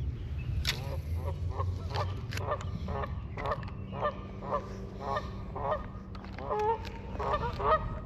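Geese honking over and over, about two calls a second, the calls growing louder and more crowded near the end.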